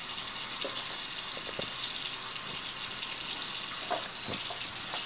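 Steady sizzling hiss of chicken braising in a pan on the stove, with a few faint gulps of juice being swallowed close to a chest-clipped microphone.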